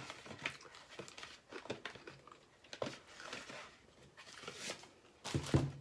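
Light rustling and scattered small clicks, like packaging or small objects being handled, with a short louder rustle near the end.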